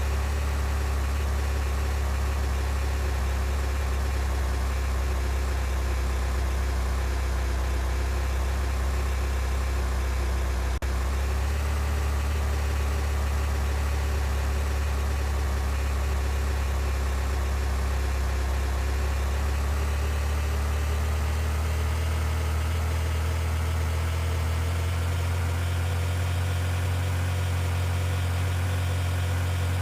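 A car engine running steadily with a low drone, its pitch rising slightly after about twenty seconds, and a single click about eleven seconds in.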